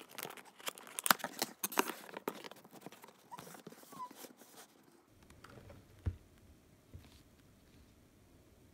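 Cardboard cake box being opened by hand: its side panel and flaps scrape, crackle and tear in a quick run of sounds for about five seconds, followed by a single soft knock about six seconds in.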